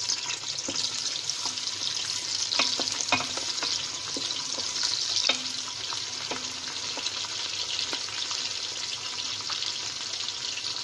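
Sliced onions sizzling in hot oil in an aluminium pressure cooker as they are browned, stirred with a wooden spoon that now and then knocks against the pot.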